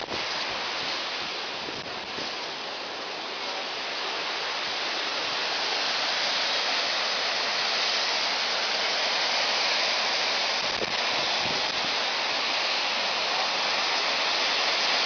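Gullfoss waterfall's steady rush of falling water, a dense even noise that eases slightly about two seconds in and grows louder from about five seconds.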